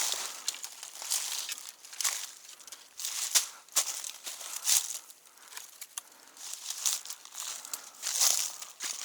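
A hiker's footsteps crunching irregularly on the trail surface, with short scuffs and crackles from step to step.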